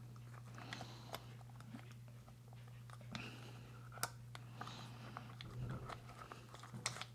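Faint scattered clicks and rattles of the metal and plastic parts of a Kirby Generation 3 vacuum's transmission being turned and fitted together by hand, over a steady low hum.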